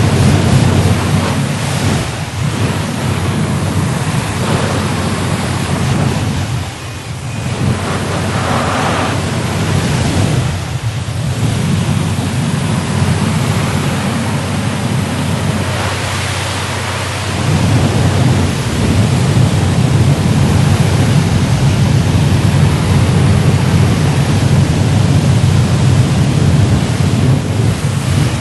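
Automatic car wash running: a loud, continuous rush of spraying water and machinery with a low rumble underneath. The level dips briefly about seven and eleven seconds in.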